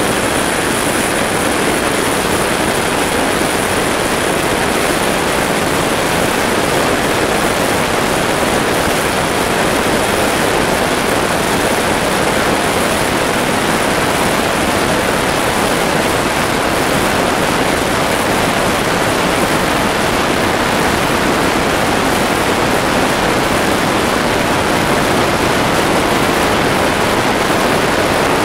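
Steady cabin noise of a de Havilland Canada DHC-6 Twin Otter in level cruise: its twin Pratt & Whitney PT6A turboprop engines and propellers running, with rushing air, heard from inside the aircraft.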